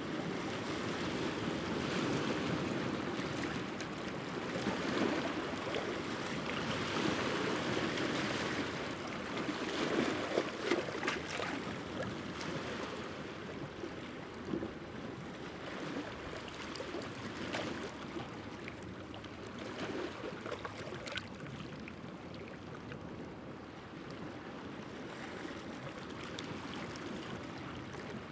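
Sea waves breaking and washing against the rocks of a rocky shore, with splashing and crackling water among the stones. The wash swells and ebbs, with the strongest surges in the first half.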